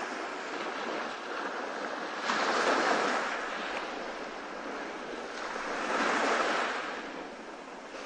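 Ocean surf washing onto a beach: a steady rush of breaking water, with waves surging louder about two seconds in and again about six seconds in.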